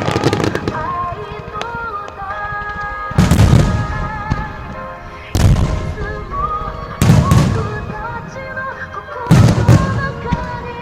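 Aerial firework shells bursting with deep booms, four big ones spaced about two seconds apart, over a pop song with singing.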